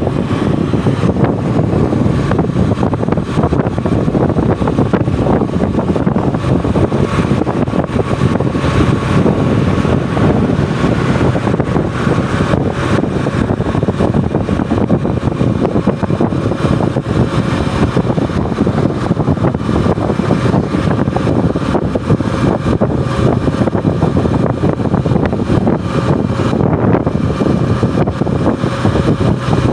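Motorcycle running steadily at cruising speed, its engine noise mixed with wind and road rush on the phone's microphone, with a faint steady whine running through it.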